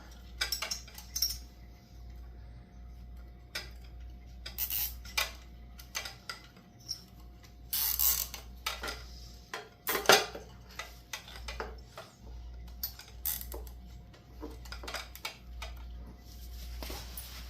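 Hands working zip ties and small parts: scattered clicks, taps and short scrapes at irregular times, with a sharper knock about ten seconds in, over a low steady hum.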